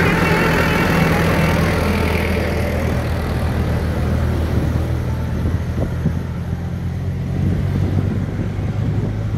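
Mahindra 475 DI tractor's diesel engine running steadily as it pulls a loaded trailer past and away. A low hum that loses its brighter edge over the first few seconds and carries on a little fainter.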